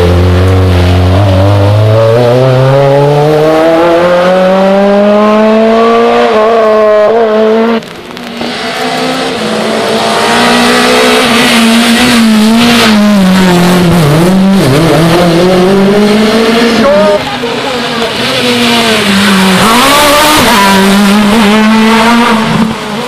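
Rally car engines at full throttle, one pass after another. The revs climb in one long pull over the first six seconds. After abrupt cuts about 8 and 17 seconds in, further cars rev hard, their engine note dipping briefly and climbing again.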